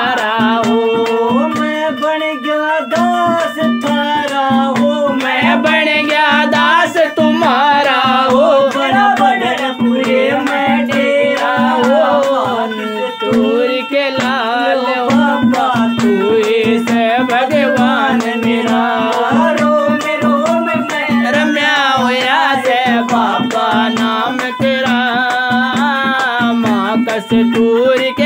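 Devotional folk song: a harmonium plays a steady low drone under a wavering, ornamented melody, with quick strokes on a hand drum. A man's singing voice is likely among the melodic lines.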